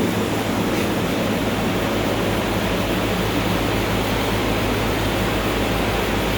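Hospital oxygen machine running: a steady low hum under an even rushing noise.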